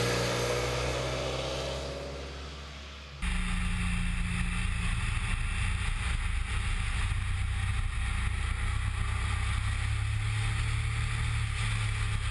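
A motorcycle engine fades away as it rides off, its pitch sliding. About three seconds in, there is an abrupt cut to a steady motorcycle engine under heavy wind rush.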